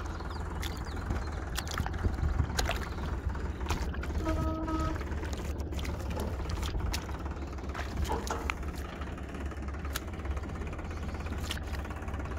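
Rustling and light splashing of a hand grabbing a fish in wet grass and shallow water, as scattered sharp clicks over a steady low rumble. A short horn-like toot sounds about four and a half seconds in.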